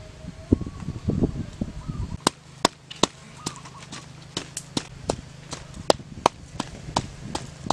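Rustling and handling for the first two seconds, then red chillies and garlic being pounded in a coconut shell: sharp, regular knocks at about three a second.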